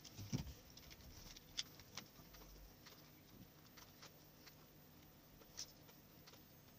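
Near silence with a few faint, scattered clicks and taps: a circuit board being handled and seated into the rails of a plastic electric-blanket controller housing.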